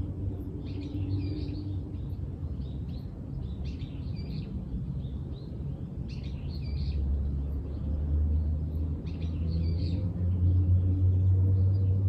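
Wild birds singing in short, repeated phrases, several bursts a few seconds apart, over a steady low rumble.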